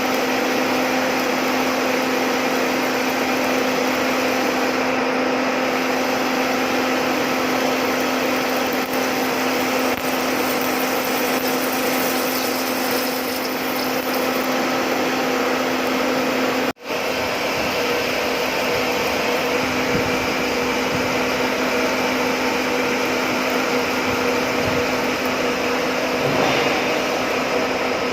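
A machine tool running steadily in a metalworking shop: a constant whirring hum with a steady whine over it. It cuts out for an instant about seventeen seconds in, then carries on unchanged.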